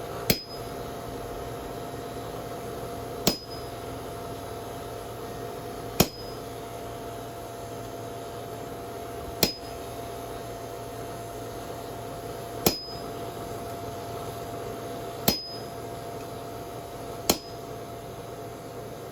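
Seven single hammer blows on hot steel over an anvil, spaced a few seconds apart, each with a short metallic ring, over a steady hum.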